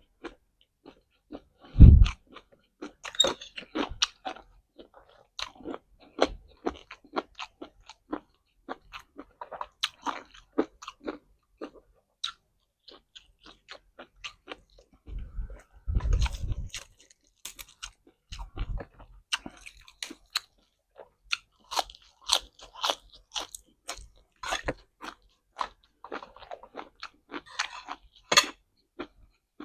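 Close-miked chewing with loud, irregular crunching of crisp raw vegetables such as baby carrots, bitten and chewed with the mouth near the microphone. A few dull low thumps come around 2 s, 16 s and 18 s.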